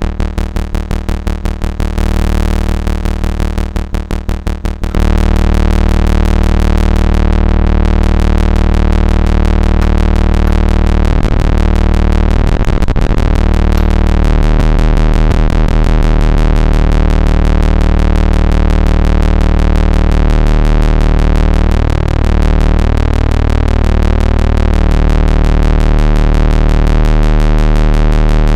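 Behringer Crave monophonic analog synthesizer playing a fast step-sequenced pattern of repeated short notes. About five seconds in, it changes to a continuous low, buzzy tone whose overtones keep shifting and sweeping.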